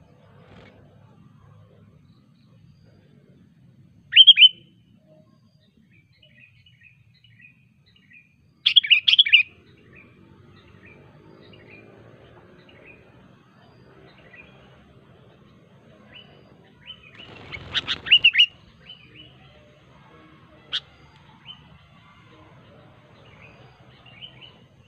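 Sooty-headed bulbul calling in short, loud bursts of sharp chirping notes, three main outbursts with softer scattered chirps between them.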